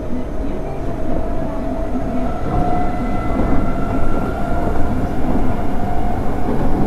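Running noise inside an Osaka Municipal Subway 23 series car on the underground Yotsubashi Line: a steady rumble of wheels on rail, with faint whining tones from the drive gear that swell slightly in the middle and fade.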